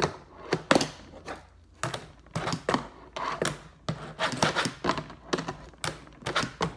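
Fingerboard clacking on a cardboard box ledge and a table top as tricks are tried: tail pops, flips and landings make a quick run of sharp clicks, about three or four a second, with a short pause partway through.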